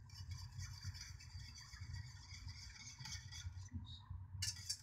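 Wire whisk stirring liquid in an aluminium saucepan, a steady scraping swish against the pan, which breaks off briefly about four seconds in and starts again.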